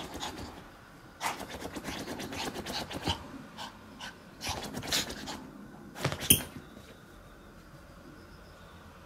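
Chihuahua scampering and digging: quick runs of claws clicking and scratching on the floor, with panting, and a sharp knock about six seconds in. It goes quieter after the knock.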